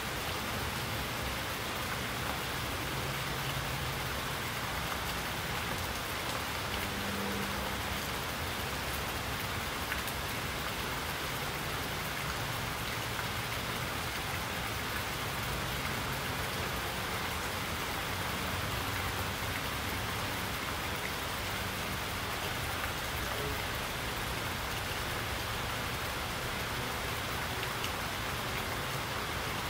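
Steady rainfall, an even hiss of many drops that holds at one level without letup.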